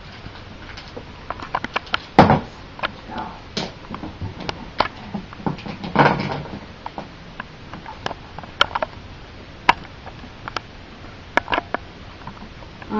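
Scattered small clicks and knocks of tableware being handled while a drink is tasted, with two louder noises, about two seconds and six seconds in.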